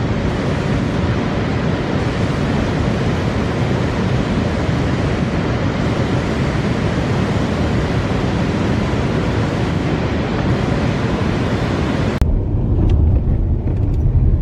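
Wind buffeting the camera's microphone: a loud, steady rushing noise that cuts off abruptly near the end, leaving a low rumble.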